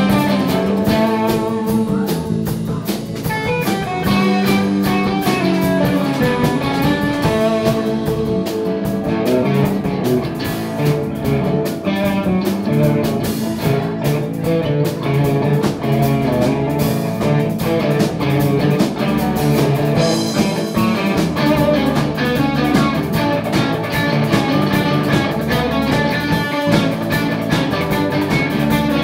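Live band playing an instrumental number led by guitars, with a steady strummed rhythm under picked guitar lines.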